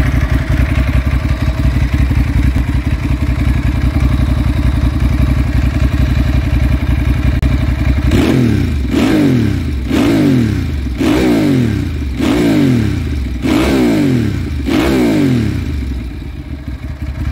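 Ducati Monster S4R's Testastretta V-twin breathing through twin Termignoni carbon silencers: a steady idle, then from about eight seconds in a run of quick throttle blips, about one a second, each revving up and falling back to idle.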